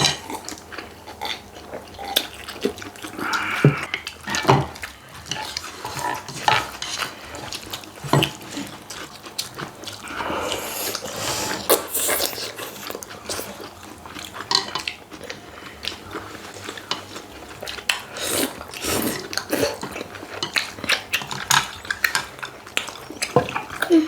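Eating sounds at the table: chewing and mouth noises, with cutlery clicking and clinking on dishes at an uneven pace, and a longer stretch of noisy crunching or rustling about halfway through.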